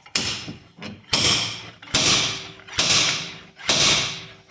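10-pound slide hammer striking repeatedly on a bearing puller, about one blow a second, five times. Each blow is a sharp metal clank that rings out for most of a second as the hammer pulls a front wheel bearing out of its bore.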